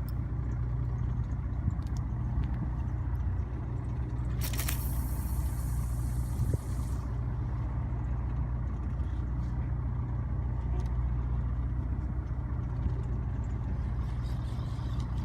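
A fishing boat's engine running with a steady low hum. About four and a half seconds in, a loud hiss starts and lasts a couple of seconds before stopping.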